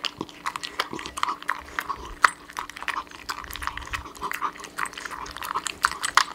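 Dachshund crunching dry kibble from a raised ceramic bowl, with many quick, irregular crunches and clicks of kibble against the bowl.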